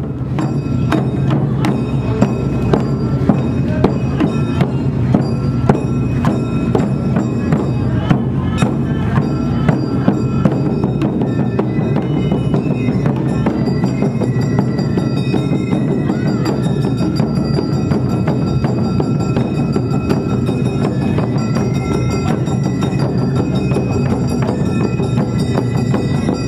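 Awa Odori dance music played by a street band: drums and ringing struck metal keeping a steady beat under sustained high melody notes.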